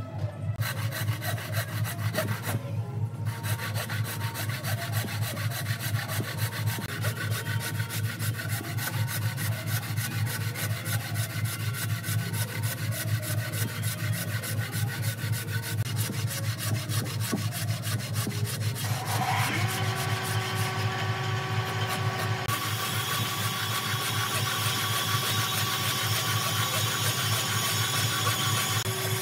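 Hand-pulled wooden frame saw cutting into a dry tree stump. The blade rasps steadily back and forth in an even stroke rhythm.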